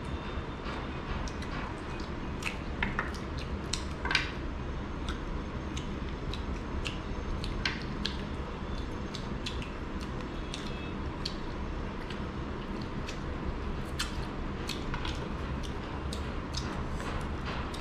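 Two people eating rice and curry with their hands: soft wet squishing and chewing, with scattered small clicks and taps of fingers and food on plates, the loudest about four seconds in, over a steady low room hum.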